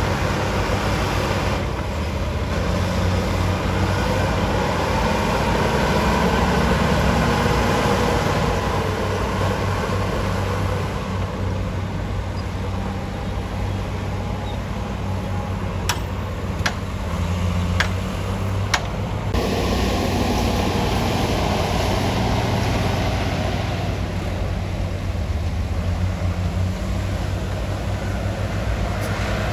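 Heavy diesel engine of an earthmoving machine running steadily under working load. A few sharp clicks come in quick succession a little past halfway.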